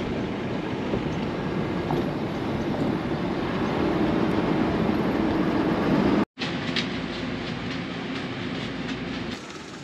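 Steady road and engine rumble of a car driving, heard from inside the cabin, broken by a split-second gap of silence about six seconds in.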